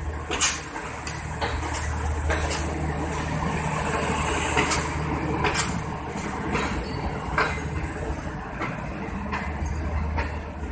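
Passenger coaches of a departing train rolling past, with the wheels clacking over rail joints roughly once a second over a steady low rumble.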